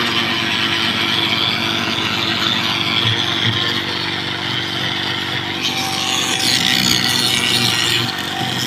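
A power tool running steadily, a motor hum under a harsh rasping noise that changes about six seconds in.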